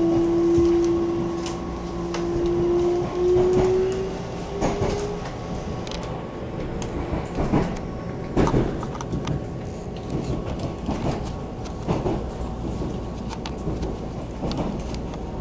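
Interior running sound of a Taiwan Railway EMU700 electric multiple unit pulling away from a station. A whine rises in pitch over the first few seconds as the train gathers speed. Then wheels clack over rail joints and points at irregular intervals above a steady rumble.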